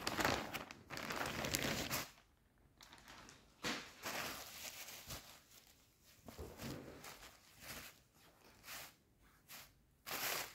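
Clear plastic packaging of a football shirt crinkling and rustling in handling as the shirt is taken out of it. It comes in bursts: a long stretch in the first two seconds, then shorter crackles, the last a sharp one near the end.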